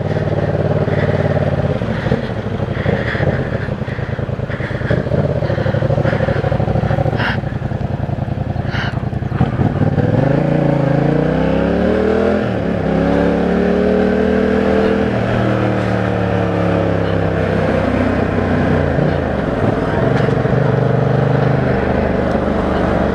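Yamaha MT-07's parallel-twin engine idling steadily, then revving up as the motorcycle pulls away about ten seconds in, the pitch rising, holding and falling back to a lower steady drone. Two short clicks come a little before it pulls off.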